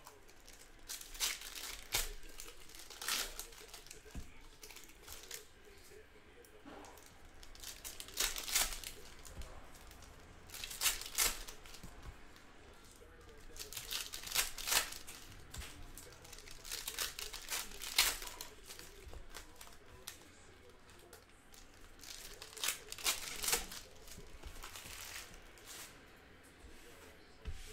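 Hands handling crinkly packaging, with crinkling and tearing in about six bouts a few seconds apart and sharp clicks among them.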